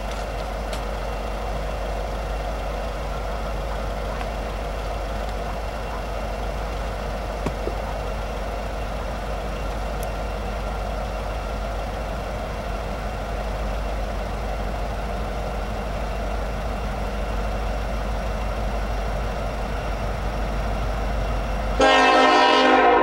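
A steady distant rumble. About 22 seconds in, the approaching Norfolk Southern SD70ACe locomotive's air horn starts loudly, a chord of several held tones.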